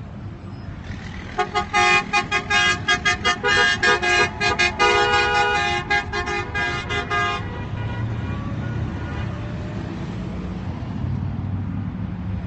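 Vehicle horn honking in a rapid series of short blasts, several a second, for about six seconds, starting about a second and a half in, over a steady traffic rumble and wind on the microphone.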